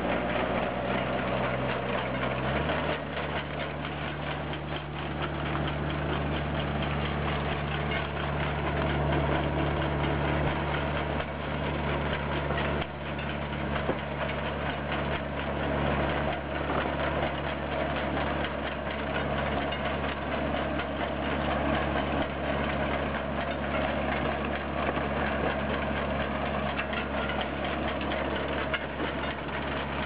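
Tractor engine running steadily while pulling a working potato digger, with the rattle of the digger's elevator and the soil and potatoes passing through it. The engine note shifts slightly about two and a half seconds in.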